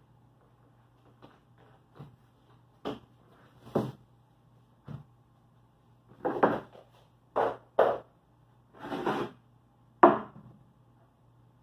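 Irregular wooden knocks and short scrapes from plywood boat panels being handled, the sharpest knock about ten seconds in.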